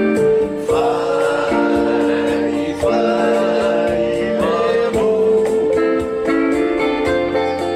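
Samoan sing-along song (pese o po'ula) performed live: singing with instrumental accompaniment.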